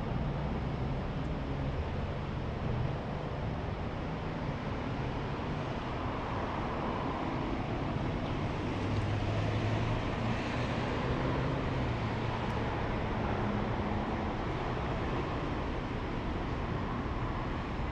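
Steady low vehicle engine hum and road noise, swelling a little louder around the middle.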